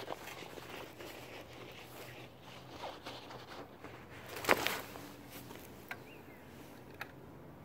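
Rummaging and handling small objects: rustling and scattered light clicks, with one sharp clack about four and a half seconds in.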